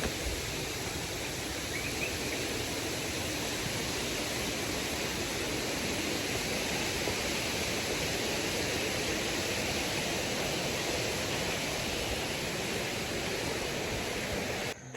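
Steady rush of flowing river water and falls, an even hiss with no break, which cuts off suddenly near the end.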